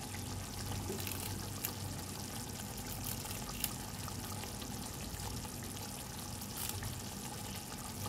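Spiced gravy simmering in a pan: a steady bubbling sizzle with a few faint pops, over a low steady hum.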